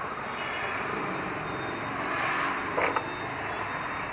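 Steady road traffic noise, with a brief louder sound about three seconds in.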